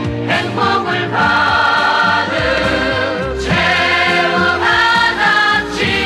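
Trot-style song playing: voices singing held melody notes over a musical accompaniment.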